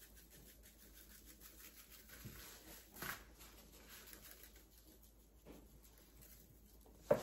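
Faint shaking of a seasoning shaker, salt-pepper-garlic rub sprinkling in a fine patter onto a skirt steak on a metal baking tray, a little louder about three seconds in.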